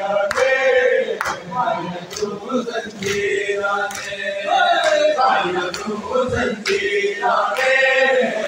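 A group of men chanting a noha, a Shia mourning lament, together in a chant-like melody. It is kept in time by sharp beats roughly once a second, the rhythm of matam (chest beating) by the mourners.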